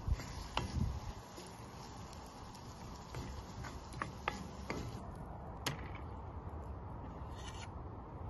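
Wooden spoon stirring food in a cast-iron skillet on a wood-burning stove, with a few sharp taps of the spoon against the pan over a steady hiss.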